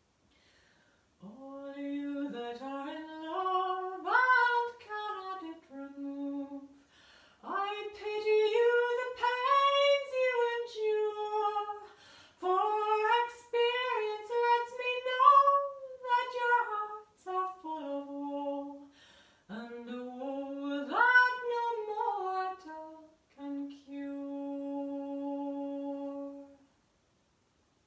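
A woman singing a traditional song unaccompanied: a slow melody sung in phrases with short breaths between. It ends on a long held low note that stops near the end.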